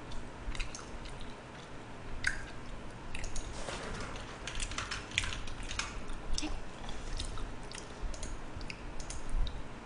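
A person chewing jokbal (braised pig's trotters) close to the microphone, with irregular small mouth clicks.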